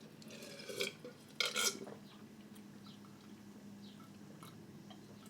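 Quiet eating mouth sounds, with a short burp about one and a half seconds in, over a faint steady hum.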